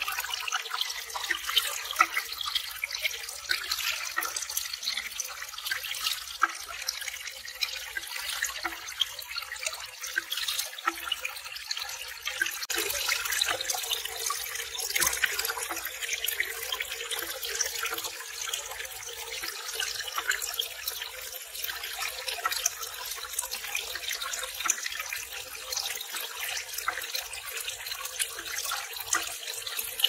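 Thin streams of water pouring from bamboo spouts into a small pond: a continuous trickling splash with many small drips and plops.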